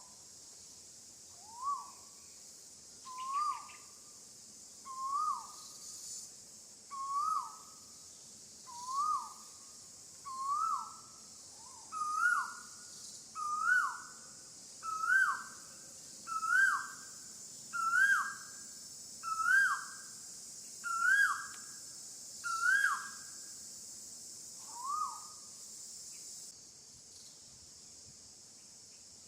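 A series of about fifteen evenly spaced whistled calls, each rising then falling, about one every second and a half, creeping higher in pitch as the series goes on and stopping near the end. Insects drone steadily behind them.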